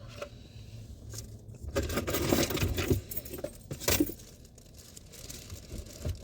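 Objects being handled and set down: rustling and clicking of plastic, with a sharp knock just before four seconds in.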